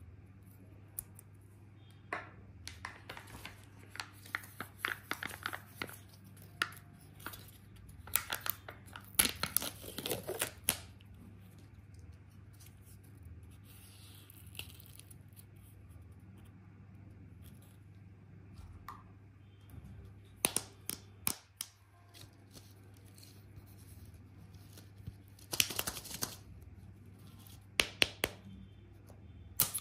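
Candy and toy packaging being opened by hand: plastic and foil wrappers tearing and crinkling in several bursts, with a quieter stretch about halfway through.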